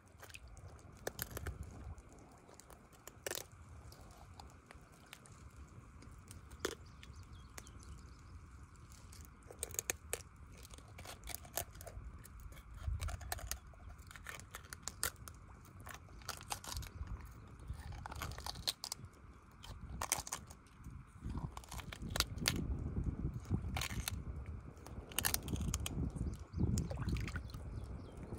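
Fish being cleaned by hand in shallow water: scattered sharp wet clicks and crunches with small splashes, over a low rumble that grows stronger near the end.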